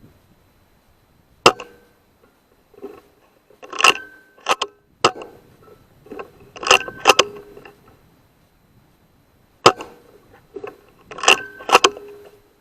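Two shots from a moderated HW100 .22 PCP air rifle, about eight seconds apart. Each is followed by bursts of sharp metallic clicks and clacks as the action is cycled to load the next pellet.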